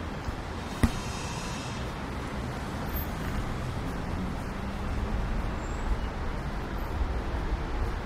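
Street ambience with a steady low rumble of traffic. About a second in there is one sharp knock, followed by a brief hiss, and the rumble swells a little towards the end.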